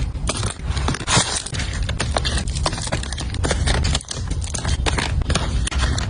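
Small household items being handled and set down while a storage cart is packed: a quick, irregular run of taps, clicks and scrapes over a low rumble of handling noise.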